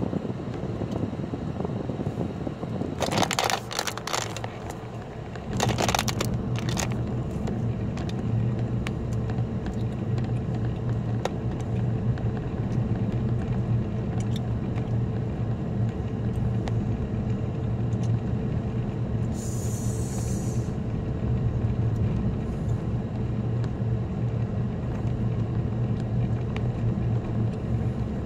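Car cabin driving noise: a steady low engine-and-road drone that gets louder about five seconds in. A few sharp clicks and rattles fall around three and six seconds in, and a brief hiss comes near twenty seconds.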